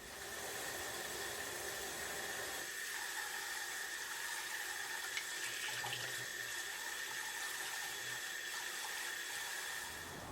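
Water running steadily from a kitchen tap into a sink; it comes on at the start and stops shortly before the end.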